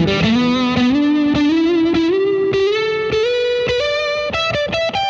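Distorted electric guitar playing a blues lead lick on two adjacent strings, moving up the G string. The notes climb step by step in pitch, and the held notes near the end carry a wavering vibrato.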